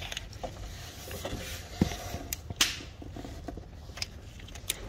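Scattered small clicks, taps and rubbing from gloved hands working a camshaft position sensor into its bore on the engine, over a low steady hum.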